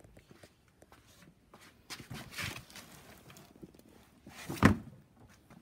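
Footsteps and small knocks, with one loud thump about four and a half seconds in.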